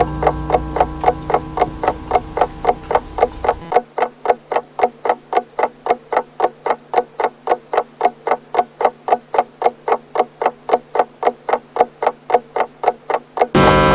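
Grandfather pendulum clock ticking steadily, about three ticks a second. The low ringing of its gong dies out about four seconds in, and a new gong strike begins just before the end.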